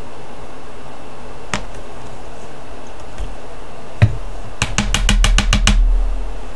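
Small glass bottle filled with glitter glue being pounded on the table to settle the glue: one sharp knock, then a quick run of about eight knocks within about a second.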